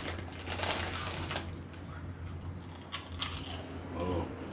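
Crunchy onion-ring snacks being bitten and chewed, with the foil snack bag crinkling, in bursts of short crackles. A brief hum-like vocal sound comes near the end.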